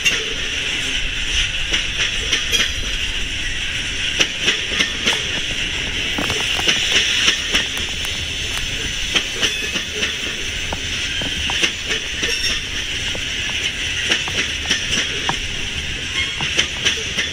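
Loaded coal hopper cars of a freight train rolling past, steady rail noise with frequent wheel clicks over the rail joints.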